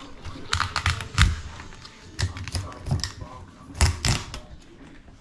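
Knife cracking and crunching through a spiny rock lobster's shell on a wooden chopping board: irregular clusters of sharp cracks and clicks, loudest about a second in and again about four seconds in.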